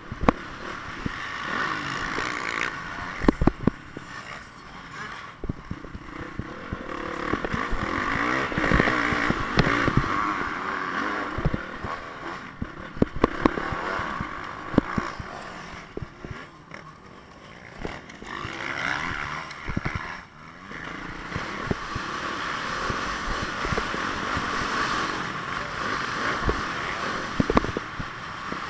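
Honda CRF450 single-cylinder four-stroke dirt bike engine revving up and easing off again and again while being ridden over a dirt track, heard through a helmet-mounted camera. Sharp knocks come here and there throughout.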